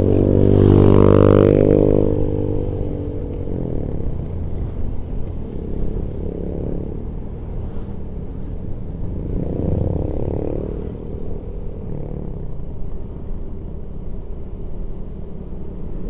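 Motor-vehicle engines on a steep mountain road. An engine swells loud in the first three seconds and fades, over steady engine and road noise, with two smaller swells around six and ten seconds in.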